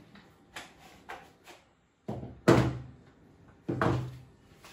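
A few light knocks, then two heavy thuds a little over a second apart, the first the loudest, like a door or cupboard being banged shut.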